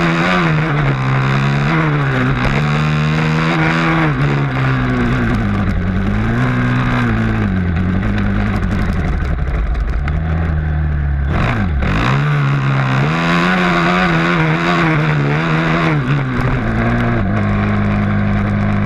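Motocross dirt bike engine heard up close from on the bike, revving up and down as the rider works the throttle around the track. About twelve seconds in the pitch drops sharply as the throttle is chopped, then climbs again, and near the end the engine holds a steadier note.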